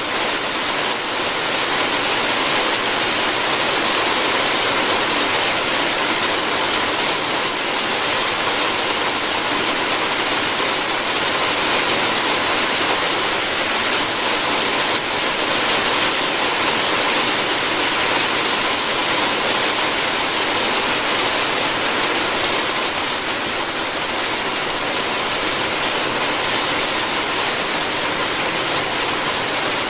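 Steady rain falling on a roof: an even, unbroken hiss of drops.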